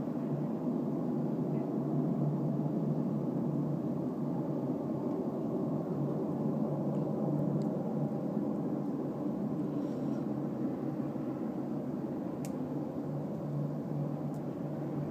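A steady, low rushing noise like a jet engine running, from an unidentified source close by.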